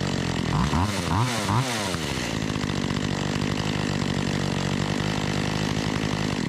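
Makita EA3200S two-stroke chainsaw running on the bench. It is revved three times in quick succession, then settles into a steady idle. It sounds good after a carburetor adjustment.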